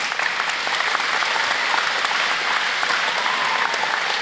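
Audience applauding: many people clapping at once in a dense, steady patter.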